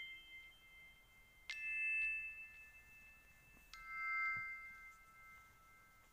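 Soft background music of bell-like chime notes: a ringing note at the start fades, then two more notes are struck about a second and a half and nearly four seconds in, each ringing out for a second or two.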